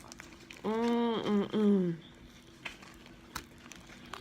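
A person humming a drawn-out "mmm-mm-mmm" of enjoyment with the mouth closed while eating, the last part falling in pitch. A few faint clicks of chewing follow.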